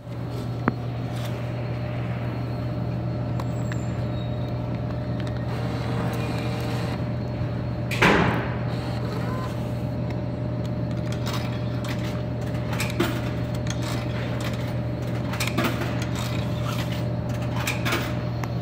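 Drink vending machine humming steadily while coins are fed into its coin slot, a few small clinks in the last third. About eight seconds in comes one louder, brief rattle.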